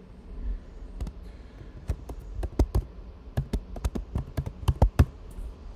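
Typing on a computer keyboard: an irregular run of sharp key clicks, starting about a second in and stopping after about four seconds, over a low background rumble.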